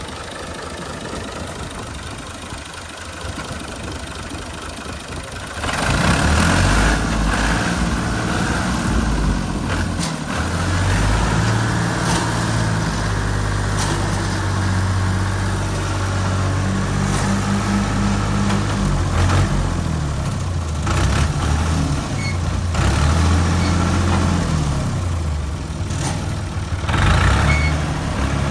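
A 65hp Al-Ghazi tractor's diesel engine running, its steady drone rising sharply in loudness about six seconds in and staying loud.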